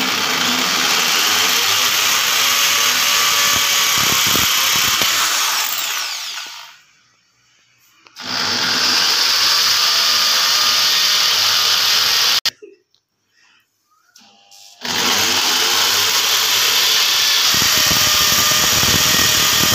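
Handheld electric drill with an 8 mm bit boring holes into a wall, in three runs separated by short pauses. The first run stops about six seconds in, the second cuts off abruptly about twelve seconds in, and the third starts about fifteen seconds in.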